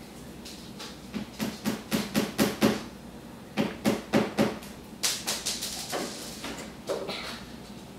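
Several quick runs of knocks or taps, about four or five a second, with a lone knock near the end.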